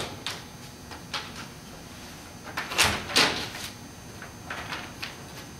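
Cross-country skis knocking and clattering against one another as they are leafed through in a rack. Scattered knocks, with the loudest pair of clatters about three seconds in.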